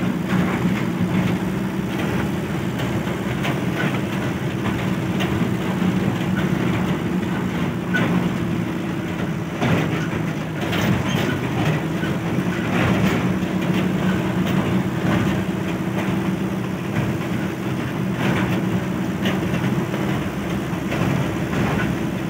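Tata Super Ace mini truck's diesel engine running steadily at low speed, heard from inside the cab, with frequent short rattles and knocks from the body as it rolls over a rough dirt field track.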